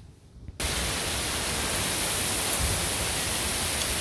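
Heavy rain pouring down in a severe thunderstorm, a loud steady hiss that cuts in suddenly about half a second in.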